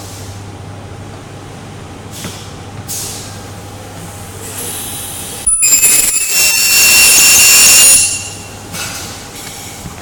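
Ultrasonic plastic welding machine making a weld: about five and a half seconds in, a loud high-pitched screech made of several steady tones starts suddenly, holds for about two and a half seconds and then stops, over a steady low hum.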